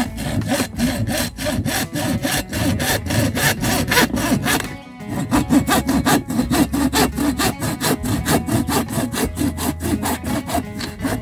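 Hand hacksaw cutting through a thin stick in quick, even back-and-forth strokes, with a short pause about halfway.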